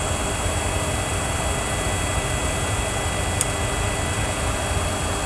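Steady cockpit background noise of a Boeing 737 flight simulator, with the simulated engines still running at idle: an even low hum and hiss with faint steady tones. A single faint tick comes about three and a half seconds in.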